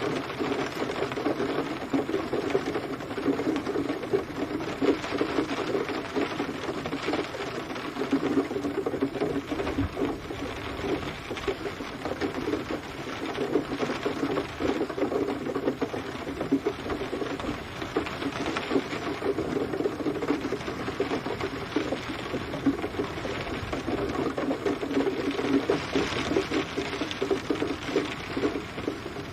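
Steady rain falling as a dense, fast patter of drops, swelling and easing slightly in slow waves.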